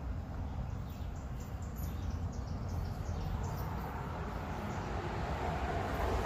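Outdoor ambience: small birds chirping repeatedly over a steady low rumble, with the noise of a passing vehicle swelling near the end.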